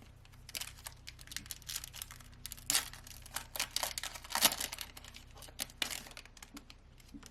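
Foil trading-card pack wrapper being handled: irregular crinkling and tearing, loudest in a couple of sharp crackles in the middle.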